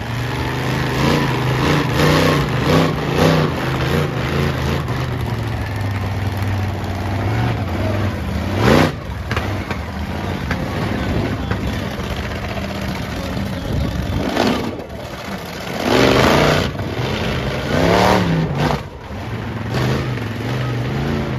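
Towasaurus Rex monster truck's engine running under load, revved hard several times: one sharp rev a little before halfway and three more in the second half, as the truck climbs onto and crushes junk cars.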